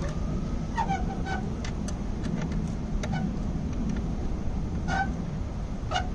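Light metallic clicks as the cable terminal nuts on a power inverter are snugged down by hand and wrench, over a steady low rumble. A few short squeaky calls come about a second in, about three seconds in, and again near five and six seconds.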